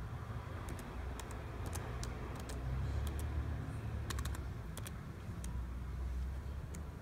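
Keys tapped on a computer keyboard: a dozen or so scattered keystrokes as a short word is typed, over a steady low hum.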